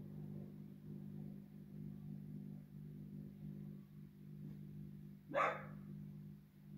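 A single dog bark about five seconds in, short and sharp, over a steady low hum.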